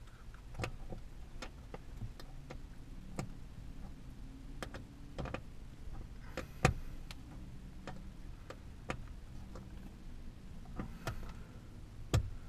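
Scattered light clicks and taps of plastic and metal as a sun visor's screw is threaded into its plastic mount by hand, with a sharper knock about six and a half seconds in and another near the end.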